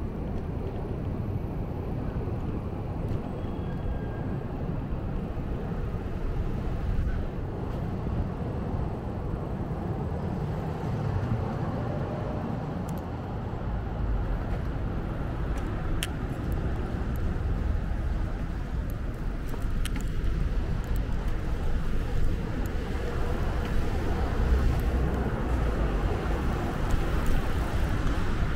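City street traffic noise: motor vehicles going by with a steady low rumble, louder in the second half, and one sharp click about halfway through.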